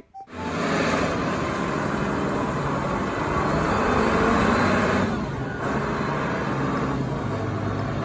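Large Caterpillar forklift's engine running steadily as the truck drives and turns, its level dipping slightly about five seconds in.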